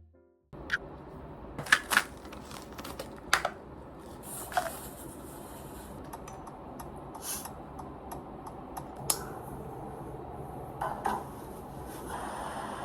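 Small hard objects clinking and tapping as they are handled, a dozen or so sharp clicks, some with a short ring, over steady room noise. A steadier rushing noise swells near the end.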